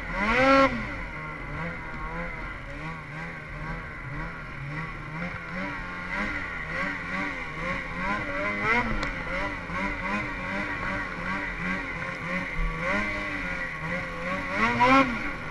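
Snowmobile engine under throttle in deep snow, its pitch rising and falling again and again as the rider works the throttle, with a sharp loud rev about half a second in and another near the end.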